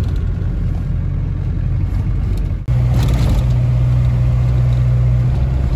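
Land Rover Defender's turbo-diesel engine heard from inside the cab, driving along, then after an abrupt cut about halfway through held at high revs in a steady drone while climbing a steep lane. The engine is tired, with compression way down.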